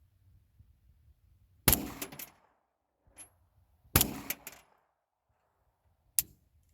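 Three loud gunshots about two seconds apart, the first two each followed closely by a couple of quick further cracks.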